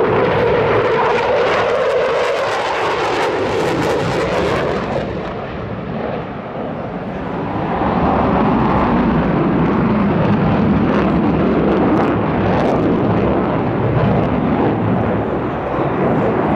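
F-15E Strike Eagle's twin jet engines at display power, a loud, continuous jet rush. It dips in loudness a few seconds in, then swells again with a lower, deeper tone for the second half.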